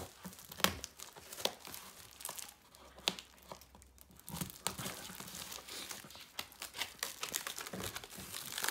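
Packaging wrap being crinkled, pulled and torn by hand in a struggle to open a sealed-up parcel, with irregular crackles and sharp snaps.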